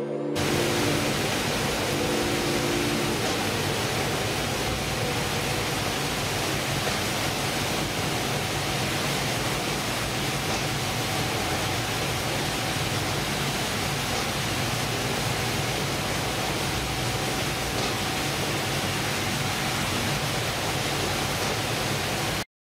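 Steady, even noise of fish-processing machinery running on board a fishing vessel, with a faint steady hum.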